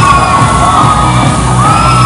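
Loud dance music with a steady beat and long held high melody notes.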